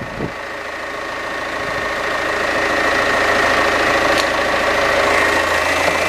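Citroen C5 idling while its Hydractive suspension pump runs, a steady whine that grows louder as the pump primes and self-bleeds the system and raises the car.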